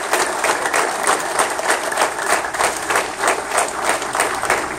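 An audience clapping in unison in a steady rhythm, about three claps a second.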